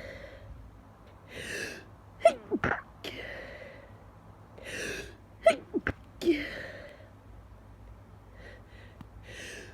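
A person sneezing twice, about three seconds apart, the sneezes stifled. Each sneeze is preceded by a sharp intake of breath and followed by a breathy exhale, and another gasping breath in comes near the end as the next sneeze builds.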